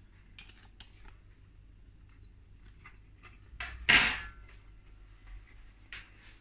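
Metal knife and fork tapping and clicking against a ceramic plate in light, scattered taps, with one louder clatter about four seconds in.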